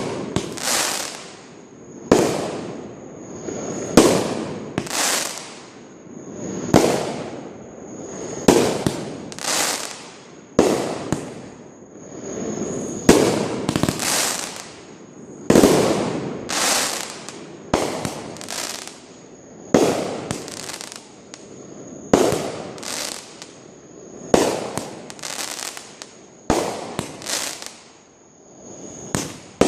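Fireworks going off in quick succession, about one bang a second, each followed by a fading rumble and crackle.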